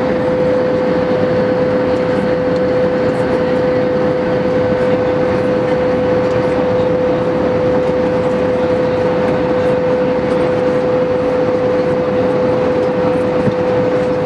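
Airbus A320 cabin noise at altitude, heard from a window seat over the wing: a steady rush of engine and airflow noise with a constant mid-pitched hum running through it.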